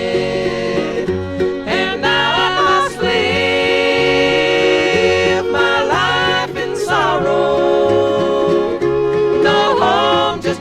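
Bluegrass band playing a slow song from a vinyl record, with banjo, guitar, mandolin, fiddle and upright bass, and a lead vocal singing over it.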